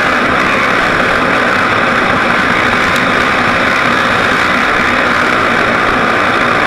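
Off-road vehicle driving fast along a sandy track, its engine and the rush of travel making a loud, steady noise from the onboard camera.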